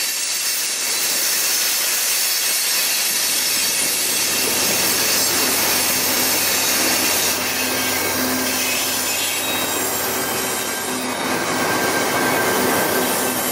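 Freight train of coal hopper cars rolling past close by, steel wheels on the rails giving a steady grinding noise with squeal. Near the end the trailing Union Pacific diesel locomotive comes by, adding a faint steady low hum.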